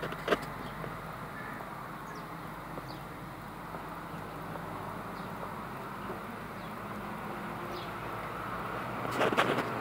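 Steady outdoor background of distant traffic, with a few faint high chirps scattered through and a short burst of sharp clicks near the end.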